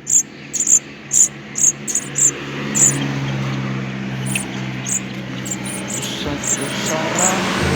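Short, high-pitched chirps from a small animal, repeating about twice a second and then thinning out after about three seconds. From about two seconds in, an engine's low, steady hum rises beneath them.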